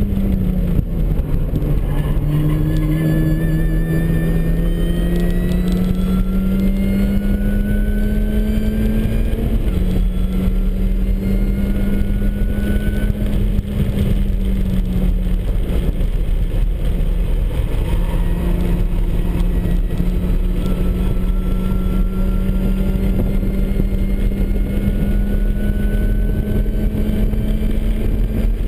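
Supercharged MINI Cooper S four-cylinder engine pulling hard at track speed, revs dropping about a second in and then climbing for several seconds, with a step in pitch near the middle as it shifts and a steadier pull after. A high supercharger whine rises along with the revs over steady road and wind noise.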